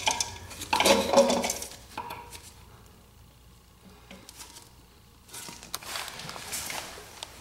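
Clinking and clattering of parts being handled inside a porcelain toilet tank during the first two seconds, then quiet, then a faint steady hiss from about five seconds in.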